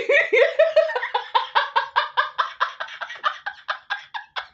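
A woman laughing hard in a long, fast run of "ha" pulses, about five a second. Each pulse gets shorter and more clearly separated toward the end.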